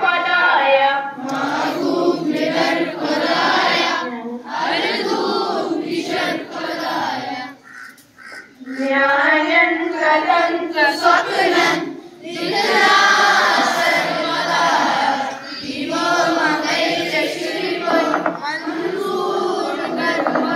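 A group of schoolchildren singing together in unison, line by line, with short breaks between the phrases.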